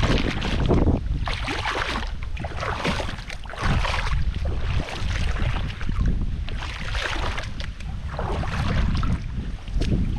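Wind buffeting the microphone: a low rumble with rushing noise that rises and falls in gusts.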